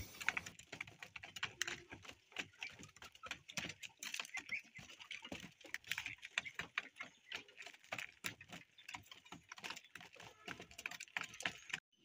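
Pigeons pecking grain off a corrugated roof sheet: faint, irregular light taps, several a second.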